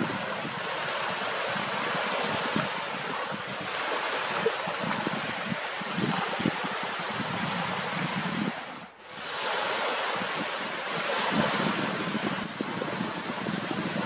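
Wind buffeting the microphone over small waves washing on a reservoir, a steady rushing noise with irregular low gusts; the sound dips out briefly about nine seconds in.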